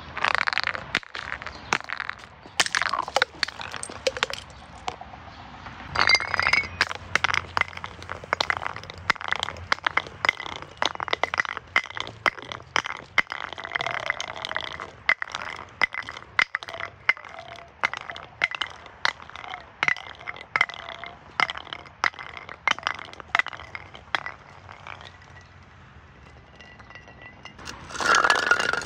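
Glass bottles breaking and clinking: many sharp cracks and clinks of glass, with a ringing glass tone between them. There are louder bursts of breaking at the very start, about six seconds in, and just before the end.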